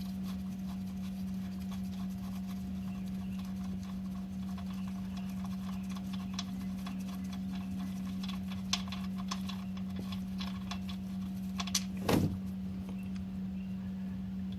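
A steady low electrical hum, with scattered light clicks and taps from hand work at the oil pan drain plug as it is pulled and the oil starts to drain. There is a louder knock-scrape about twelve seconds in.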